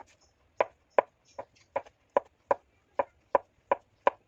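Knife chopping food on a cutting board: about ten even, sharp strokes, roughly three a second, starting about half a second in.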